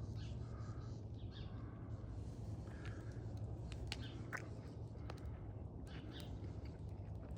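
Crows cawing faintly a few times, over a steady low hum with scattered light clicks.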